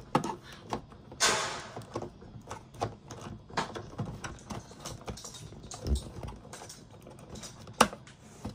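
Irregular plastic clicks, taps and rattles as a toy bubble gun's battery compartment is handled: the battery pack and its cord are pushed into the handle and the lid is worked to snap shut. A brief louder rasp comes about a second in and a sharp click near the end.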